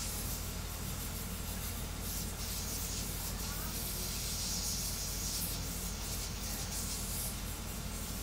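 Voron 3D printer running a fast print: a steady whirring hiss from its fans and rapidly moving toolhead over a constant low hum, the hiss swelling and easing every second or two.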